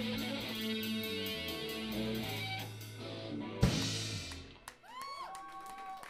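Live rock band of electric guitars, bass guitar and drum kit playing the last held chords of a song over ticking cymbals. The song ends on one loud final hit about three and a half seconds in, which rings away. Near the end a high held tone rises in.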